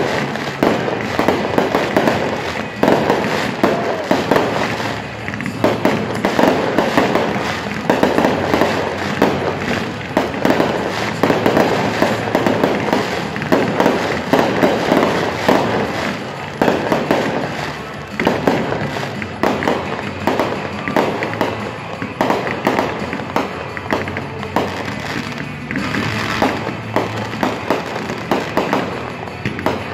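Fireworks display going off continuously, with rapid overlapping bangs and crackling and music playing underneath.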